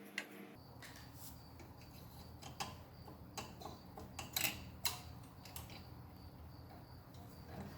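Scattered light metallic clicks and taps of hand tools and small parts as a small-engine carburetor is unbolted, over a faint low hum that sets in about half a second in.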